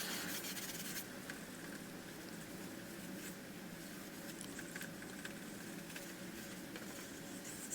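Pencil and eraser working on a large sheet of paper, heard as a few faint scratches over a low, steady hiss.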